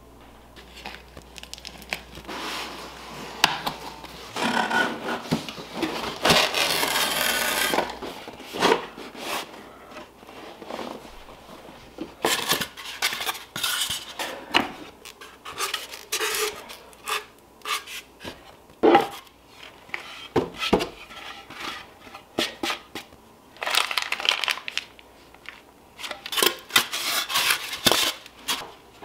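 Unpacking noise: a cardboard box and its foam packing are handled, with rubbing and scraping, a longer scrape a few seconds in, and scattered clicks and knocks of the hard plastic hooping station against the box.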